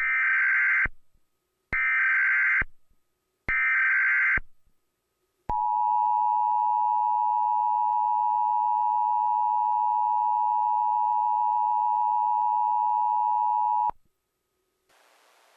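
Emergency Alert System header and attention signal: three short bursts of digital data tones, each just under a second long, then a steady two-tone attention beep held for about eight seconds. This signal announces an emergency alert message.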